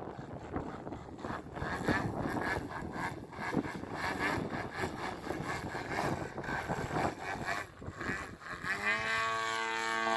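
Engine and propeller of an RC aerobatic plane in flight. For most of the time the sound is rough and fluctuating, with wind on the microphone. Near the end it turns into a clear engine note that falls in pitch and then holds steady.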